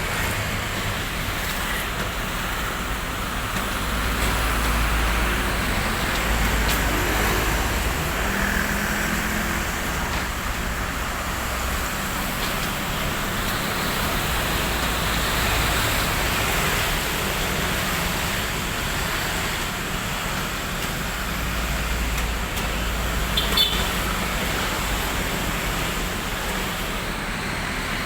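Vehicle engine running steadily, a continuous noisy drone with a low hum that swells and eases a few times.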